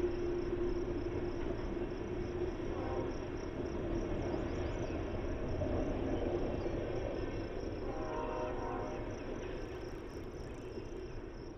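Steady high-pitched buzzing of insects, over the low rumble of a receding freight train that slowly fades.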